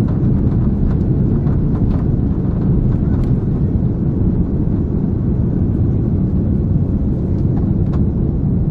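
An Airbus A330-300 jet airliner on its takeoff roll and lift-off, heard from inside the cabin: the engines at takeoff thrust and the runway make a loud, steady low rumble, with a few faint clicks from the cabin.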